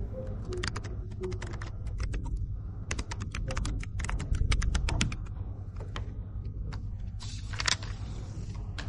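Typing on a computer keyboard: irregular runs of quick key clicks, busiest in the middle, over a steady low room hum. A short hiss comes near the end.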